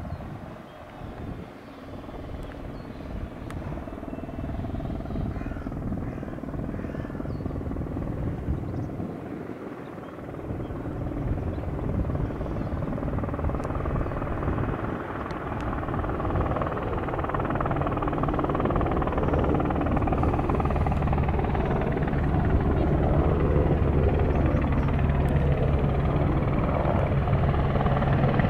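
Westland Sea King HAS.5 helicopter's main rotor and twin turboshaft engines, a continuous beating drone that grows steadily louder as the helicopter flies in towards the listener, with a brief dip about a third of the way through.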